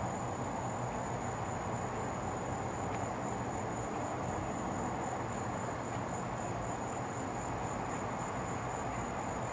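Crickets trilling in a steady, unbroken high chorus over a constant low rumble of background noise.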